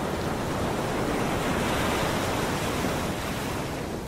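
A long, airy whoosh like surf or wind that swells to a peak about halfway and then slowly fades: the rushing sound effect under a production company's animated logo.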